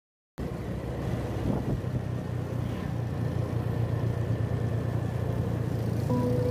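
Motorcycle engine running steadily at riding speed, with wind and road noise, cutting in abruptly after a half-second of silence. Music with plucked-sounding notes comes in near the end.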